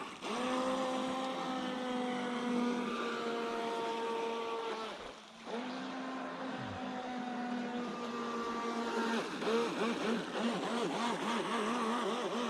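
Electric RC speedboat motor whining at a steady high pitch. The throttle cuts off briefly twice. In the last few seconds the pitch wavers rapidly up and down.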